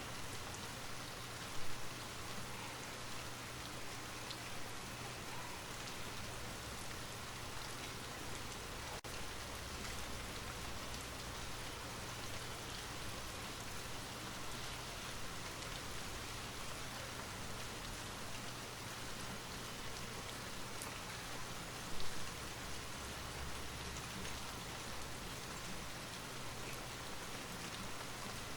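Light rain falling steadily, an even hiss of fine patter with separate drops ticking through it. Two brief louder taps stand out, one near the start and one about two-thirds of the way through.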